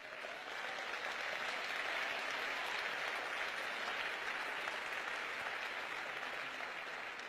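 Audience applauding. The applause swells quickly at the start, holds steady, and tapers slightly near the end.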